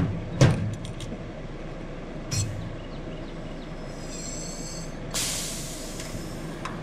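Sharp metal knocks from work on a school bus's riveted sheet-metal side, with a brief high squeal about four seconds in and then about a second of hissing air, over a steady low hum.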